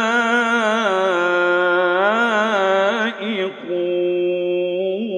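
A male Quran reciter chanting in melodic tajweed style, drawing a word out through a wavering, ornamented melody. A short break comes about three seconds in, then he holds one steady note.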